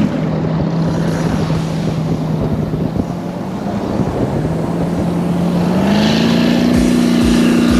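A 22-foot Stingray motorboat's engine running steadily at low speed, with wind and water rushing past. About six seconds in, the engine note rises as the boat picks up a little speed.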